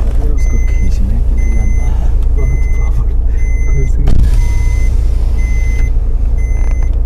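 Electronic reversing-alarm beeps, one short high beep about once a second, over a steady low rumble.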